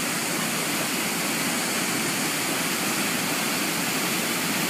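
Steady rush of river water pouring over a small waterfall, an even noise that holds at one level.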